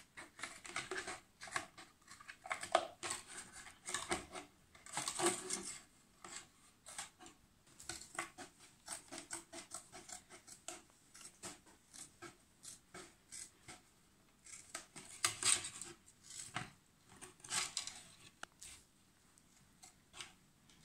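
Scissors cutting through a plastic fabric-softener bottle: a run of short snips in quick succession, louder in a few clusters and quieter near the end.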